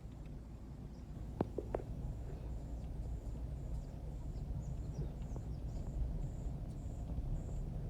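Small car driving slowly over a rough, rocky dirt road: a steady low rumble of engine and tyres, with a couple of knocks from the car body about a second and a half in. Over it runs a high chirping, short notes repeating about twice a second.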